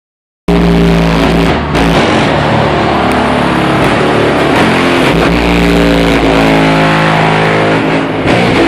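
Bass-heavy music played loud through a car audio system with two 12-inch Sundown SA subwoofers driven by a 1000 W RMS amplifier. It starts abruptly about half a second in.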